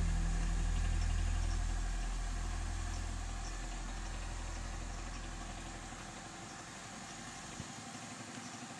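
Low, steady machine hum that fades away over several seconds, with one faint click near the end.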